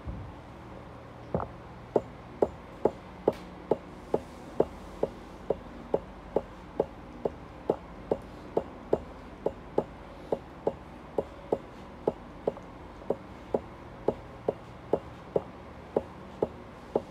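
Steady, evenly spaced soft knocks or ticks, a little over two a second, starting about a second and a half in and keeping an unchanging beat over a low steady background hum.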